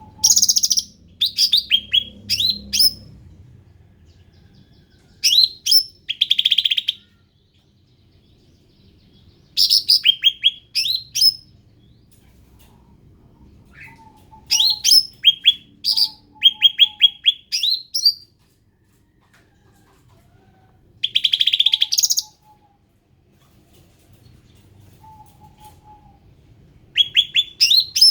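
Cucak ranting songbird singing in short bursts of rapid, high, chirping notes, six phrases of one to three seconds separated by pauses of a few seconds.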